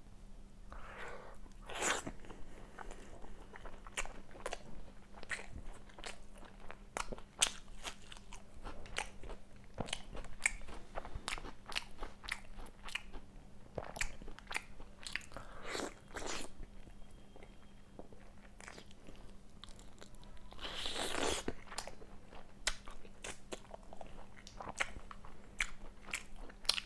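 A person chewing and biting chicken kosha, a thick Bengali chicken curry: a steady run of small wet clicks and crunches, with a few louder, longer mouth sounds about 2, 16 and 21 seconds in.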